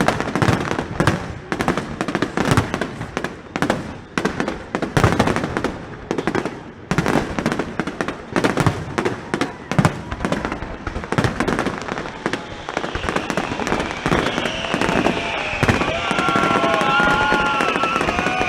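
A fireworks display: a rapid, continuous run of bangs and crackling from aerial shells. In the last third, wavering whistling tones and a slowly falling whine join the bangs.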